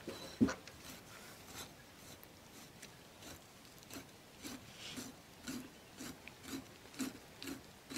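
Large knife scoring deep cuts into a raw deer carcass: faint, repeated slicing strokes, about two a second in the second half.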